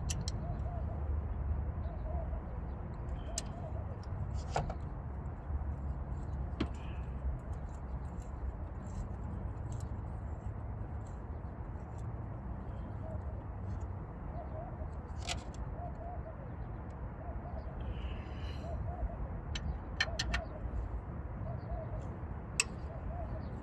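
A dove cooing in short repeated phrases over a steady low rumble, with a few sharp clicks and taps scattered through.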